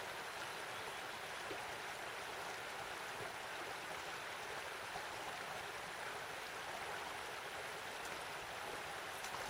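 Shallow stream running steadily over stones, an even rushing water sound.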